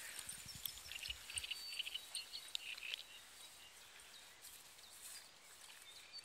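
Birds singing in the background, many short high chirps throughout, with a few low thumps in the first second and a half.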